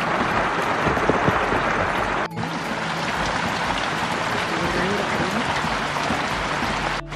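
Steady rain, an even hiss that drops out for an instant about two seconds in.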